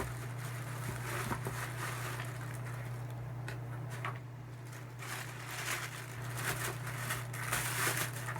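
Rustling and crinkling of shoe packaging being handled, busiest in the second half, over a steady low hum.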